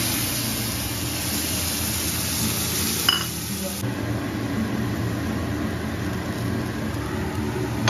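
Beaten egg sizzling as it is poured into a hot wok, with a metal spatula clicking once against the pan about three seconds in; the sizzle drops away about four seconds in, leaving a steady low hum.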